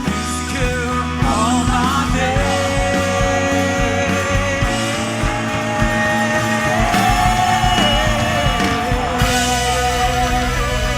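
Upbeat rock-style worship music from a full band, with a steady drum beat and held, wavering melody lines over it.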